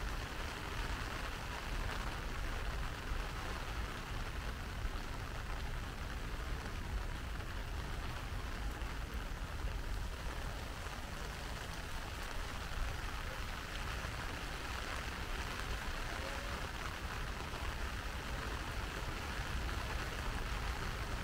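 Steady rain falling and pattering on surfaces, with a low rumble underneath.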